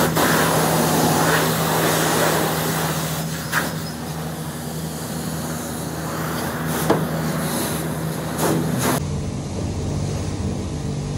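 Car-wash pressure wand spraying water onto a car with a steady hiss over a low steady hum. The spray is strongest in the first few seconds, then eases, with a few sharp clicks.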